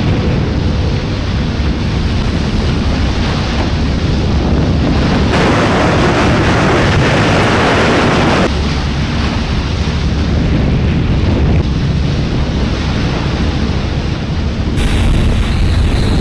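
Wind buffeting the microphone on a moving boat, over the low rumble of the boat's engines. A stronger rush of wind noise lasts about three seconds near the middle.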